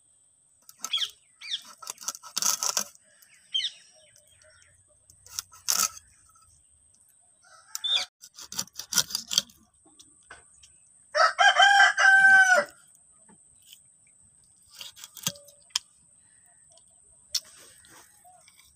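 A rooster crows once, loud and about a second and a half long, about two-thirds of the way in. Around it come short, scattered scraping and crunching sounds of a hilsa fish being scaled and cut on a boti blade.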